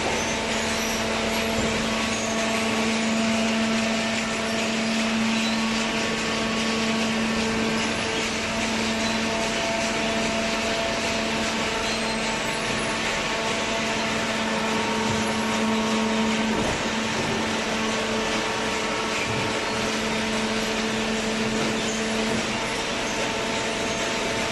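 Hydraulic carton box baler running, its electric motor and hydraulic pump giving a steady whirring hum.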